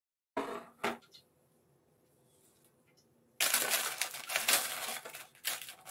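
Baking paper crinkling and frozen breaded eggplant pieces clicking against each other and the metal tray as they are handled. A few sharp knocks come about half a second in, and steady crackling and clicking starts about three and a half seconds in.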